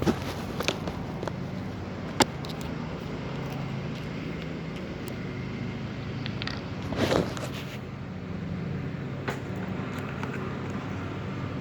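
A motor engine running steadily at an even pitch, with a few light clicks and knocks over it and one louder short noise about seven seconds in.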